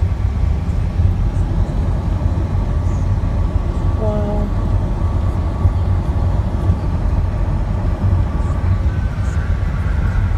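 Steady road and wind rumble heard inside a car driving at highway speed. A brief pitched sound cuts in about four seconds in.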